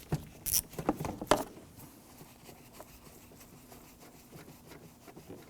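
A few sharp metallic clicks in the first second and a half from a 1/4" ratchet with a T30 Torx bit on an extension being worked on a door-panel screw, then quiet room tone.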